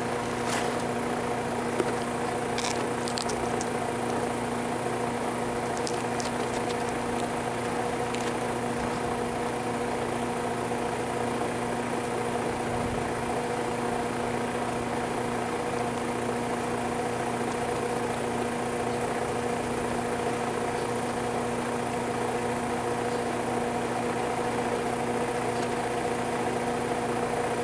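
A steady machine hum, even and unchanging throughout, with a few faint clicks in the first several seconds.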